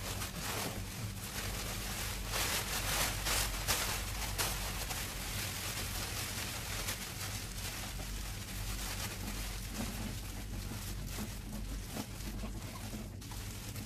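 Pressure washer spraying water onto a split-type air conditioner's indoor unit inside a plastic cleaning bag: a steady hiss of spray, with a steady low hum of the washer's motor underneath.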